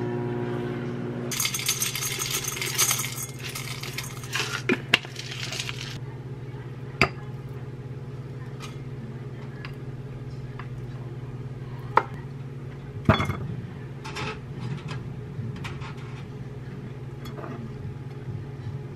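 Microwave oven humming for about the first second, then several seconds of crinkly rustling. After that, a few sharp clinks as a wooden spoon and chopsticks knock against a glass bowl and an enamel bowl while Greek yogurt and grapes are served, over a low steady hum.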